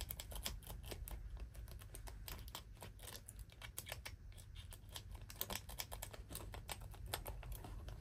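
Faint, irregular clicking and scraping of a lock pick and tension wrench working the pins in the keyway of a Master Lock disk padlock, as it is picked open.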